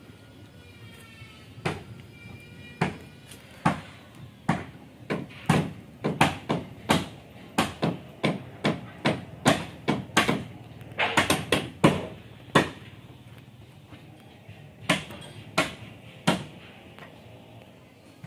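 Hammer blows on wood while a wooden boat hull is being built: irregular sharp strikes, about one or two a second, with a quick flurry a little past the middle.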